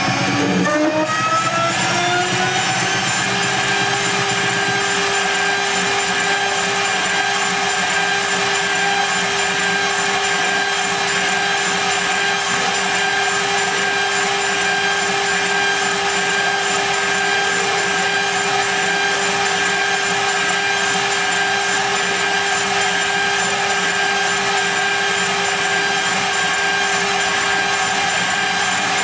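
Benchtop CNC mill spindle with a rising whine as it comes up to speed, levelling off about three seconds in, then running steadily while a 4 mm ball end mill cuts 6061-T6 aluminium under a coolant spray.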